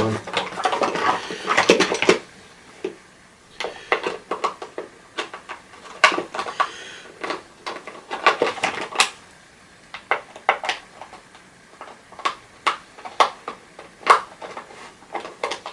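Hard plastic and metal parts of an old vacuum cleaner being worked loose and handled during dismantling: irregular clicks, knocks and light rattles, busiest in the first couple of seconds.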